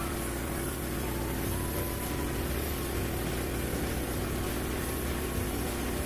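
Portable band sawmill's small gasoline engine running steadily.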